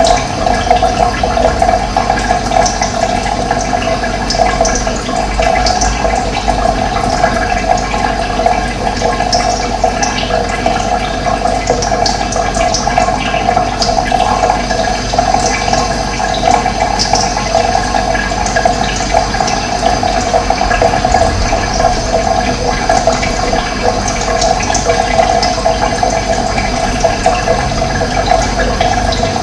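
Running water rushing steadily, with short high bird chirps scattered through it.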